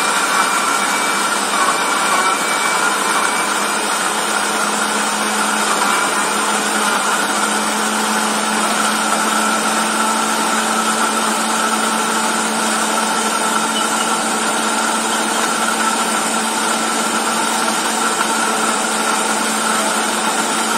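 Countertop blender running steadily at full speed, its motor whining as it purées green corn kernels, sausage and garlic with a little water into a thick paste.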